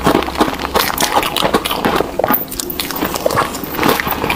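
Close-miked crunching and chewing of crumbly green frozen ice: a dense, irregular run of sharp crunches, bite after bite.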